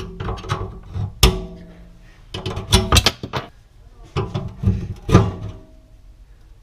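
Sharp metal clanks and scrapes as a screwdriver and pliers work the rusted mounting ring of a garbage disposal loose from the sink flange, in irregular clusters of strikes, some of them ringing briefly.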